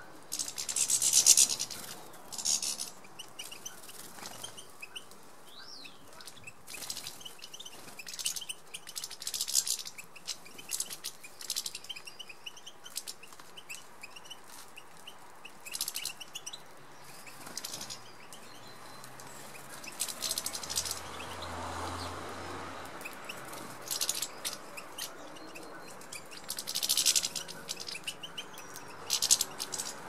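European goldfinches at a seed feeder: repeated short flurries of wing flutter as birds land, squabble and take off, with light twittering calls between them.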